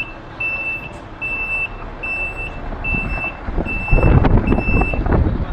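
Reversing alarm of a concrete pump truck beeping steadily, about one beep a second, over the truck's engine running; the engine rumble grows louder about four seconds in and the beeping stops near the end.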